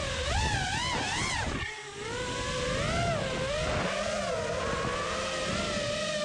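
Motors and propellers of a 5-inch FPV racing quadcopter whining, the pitch swooping up and down rapidly with throttle, dipping briefly about two seconds in, then holding a steadier, gently wavering whine.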